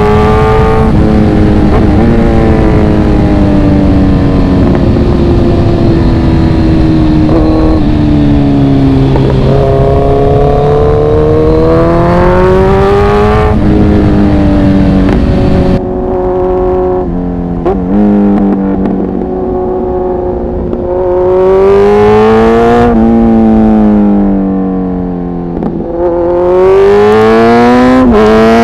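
Kawasaki Z900 inline-four engine revving up and easing off while being ridden, its pitch climbing and then dropping several times as it goes through the gears. A rush of wind noise is loud over the first half and drops away about halfway through.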